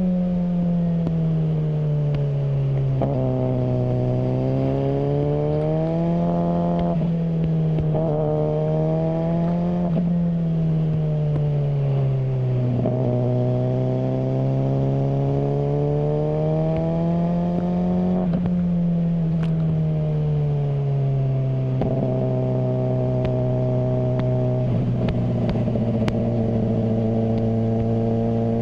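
Suzuki GSR600 inline-four engine through a GPR Ghost aftermarket exhaust, its revs climbing and falling several times in long smooth sweeps, then holding steady for the last several seconds.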